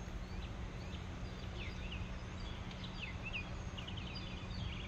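Bird calls: scattered short chirps, then a quick rattling trill near the end, over a steady low hum.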